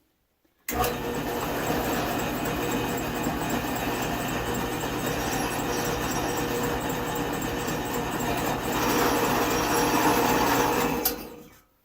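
Electric drill running steadily while drilling the rivet-pin hole through the steel of a pair of box tongs. It starts abruptly, grows slightly louder near the end and then winds down.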